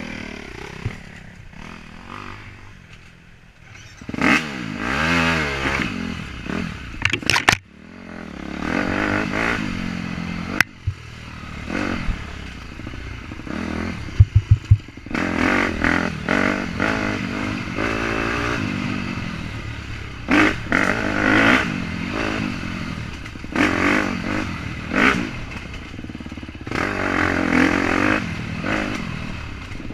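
KTM dirt bike engine revving up and down under the rider's throttle, its pitch rising and falling, with clattering knocks from the bike over rough ground, including a quick run of four sharp knocks about 14 seconds in.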